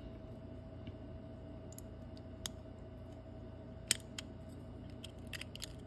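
Faint scattered clicks as a small plastic sensor housing is handled and a thin metal tool pokes into it, a few sharper clicks toward the end, over a steady low hum.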